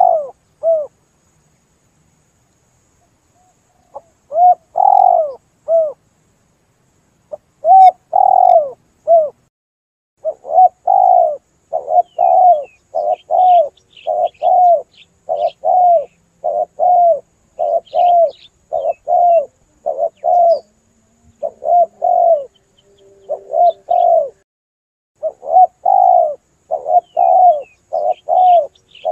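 Spotted dove cooing loudly and repeatedly: short coos in groups of three with pauses of a few seconds at first, then from about ten seconds in a fast, steady run of about one and a half coos a second. Faint high chirps of small birds sound between the coos.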